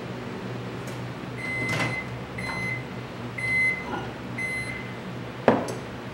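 Microwave oven beeping four times about a second apart, its end-of-cycle signal that the cup of soft-plastic bait plastic inside has finished heating, with the click of its door being opened. A sharp knock near the end.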